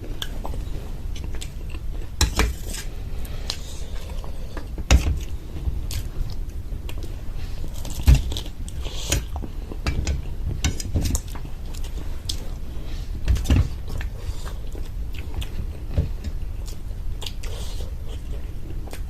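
Close-up chewing and biting of a crunchy fried samosa, the pastry crackling between the teeth, with a few louder knocks now and then.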